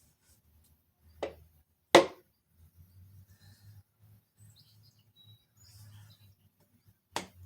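Sharp knocks, with the loudest about two seconds in and another near the end: a piston being tapped down out of a strap-type ring compressor into the cylinder bore of a Jeep 4.0 engine block.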